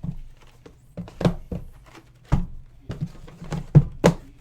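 Several irregular thuds and knocks of boxes of trading cards being handled and set down.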